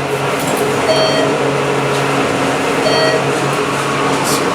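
Inside a moving ThyssenKrupp elevator cab: a steady hum, with a short electronic chime sounding about every two seconds, in step with floors being passed.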